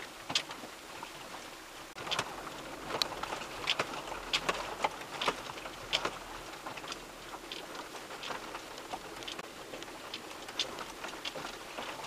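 Irregular clicks, rattles and crackles, a few each second, as a 4x4 crawls slowly over a rough, stony track, picked up by a dashcam.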